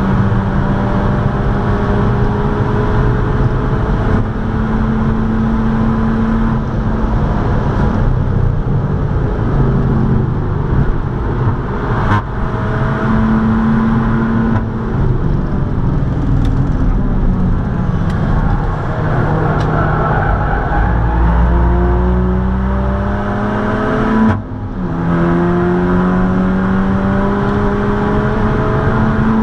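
Seat Leon Cupra 280 ST's turbocharged 2.0-litre four-cylinder engine, with a custom exhaust, heard from inside the cabin pulling hard at high speed, its pitch climbing slowly. Near the end a quick upshift drops the pitch, and it climbs again.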